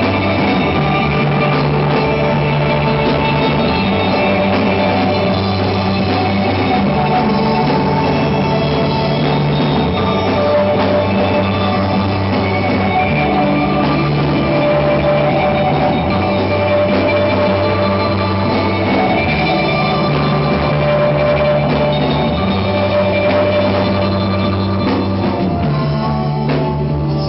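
Rock band playing live: electric guitars, bass guitar and drum kit in an instrumental passage without vocals, loud and steady, the bass moving between held notes every couple of seconds.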